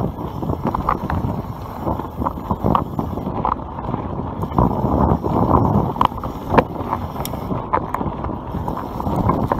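YT Capra enduro mountain bike riding fast down a dirt trail: tyres rumbling over the ground and wind on the microphone, with frequent sharp clicks and rattles from the bike over bumps.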